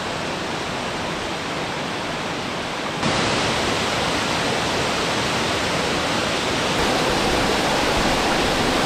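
Mountain waterfall pouring into a rocky torrent: a steady rush of falling water. It jumps louder about three seconds in.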